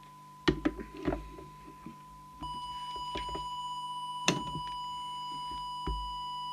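A steady 1 kHz audio test tone used to set the CB transmitter's deviation. It is faint at first. About two and a half seconds in it jumps louder and turns buzzier with added overtones, as the set is keyed into transmit, and the deviation is well over the top. A few sharp clicks and knocks of switches and handling come early on and again later.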